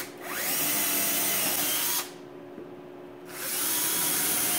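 Handheld power drill boring a quarter-inch hole through a wooden board into the spoil board beneath. It spins up with a rising whine, runs for about two seconds, stops abruptly, then starts up again about three seconds in.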